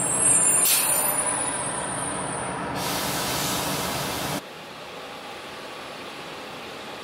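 Car driving on city streets, with steady road and engine noise inside the cabin and a loud hiss from about three seconds in. About four and a half seconds in the sound cuts suddenly to a quieter, even street background.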